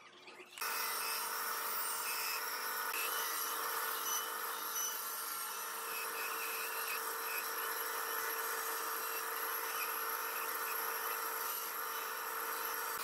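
Narrow-bladed electric bench saw running steadily while cutting through a thick pallet-wood board. The sound starts abruptly under a second in.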